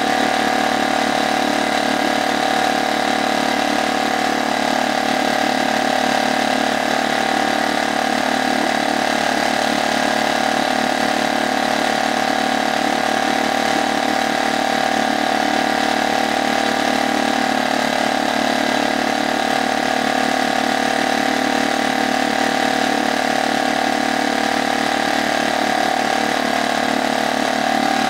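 HDX F 2.6 four-stroke single-cylinder outboard motor, brand new, running at a steady low speed with its leg in a barrel of water; the pitch and level hold constant throughout.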